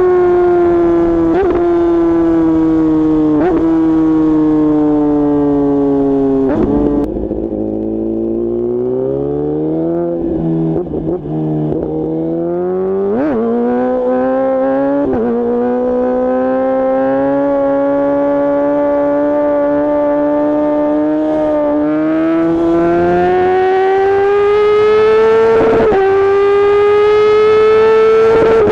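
2014 Kawasaki ZX-10R's inline-four engine through a straight-piped Akrapovic exhaust, running at speed. The engine note falls slowly for several seconds, drops lower with a few sharp cracks about a third of the way in, then climbs steadily and holds near the end.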